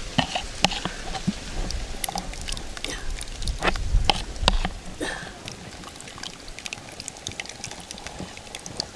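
Thick groundnut sauce pouring and dripping onto boiled sweet potato chunks in a metal pot, with irregular small plops and ticks that thin out after about five seconds.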